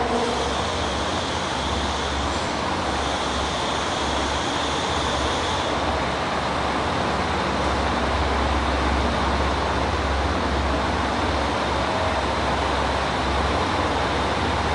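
KiHa 185 diesel railcar pulling slowly into a station platform, its diesel engine running with a steady low throb.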